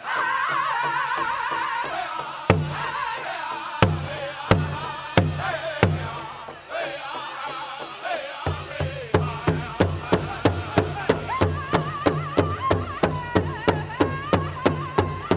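Pow wow drum group singing a chicken dance song: high, wavering voices over a large bass drum struck in unison. The drum gives a few widely spaced hard beats, then about halfway through settles into a steady beat of about three strokes a second.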